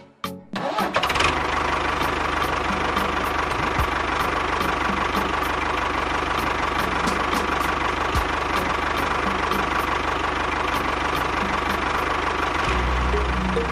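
Tractor engine running steadily, starting about a second in, its low rumble growing stronger near the end.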